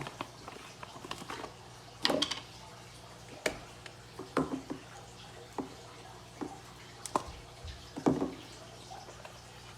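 Scattered clicks, taps and short rattles from a beef seasoning container being handled and opened, the loudest clusters about two seconds in and about eight seconds in, over a faint steady low electrical hum.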